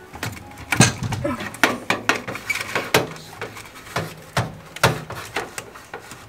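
A grow light bar being handled and tugged at under a metal cabinet shelf: a dozen or so irregular knocks, clicks and rattles, the loudest about a second in and near the middle.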